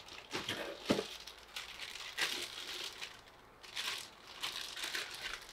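Clear plastic packaging bag crinkling and cardboard box rustling in irregular bouts as a wrapped part is lifted out and handled, with a knock about a second in.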